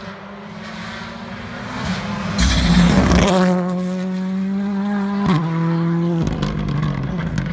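Rally car approaching and passing close by at speed with a loud rush, then pulling away hard at steady high revs, its engine note dropping with an upshift about five seconds in.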